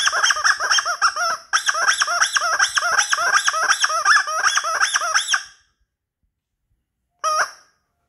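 Plastic toy horn sounded in fast squeaky honks, about five a second, each rising and falling in pitch. There is a brief break about a second and a half in, the honking stops after about five and a half seconds, then one more short honk comes near the end.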